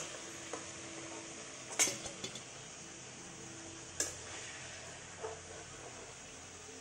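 Steel spatula knocking against a metal kadai and a steel bowl as fried paneer cubes are scooped out: a few sharp metallic clinks over a faint steady sizzle of hot oil.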